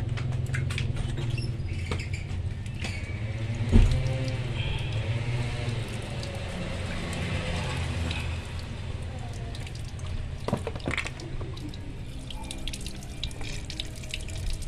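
Water running and splashing over a motorcycle brake master cylinder held over a plastic basin as it is rinsed out, with small clicks and one louder knock about four seconds in. A steady low hum runs underneath.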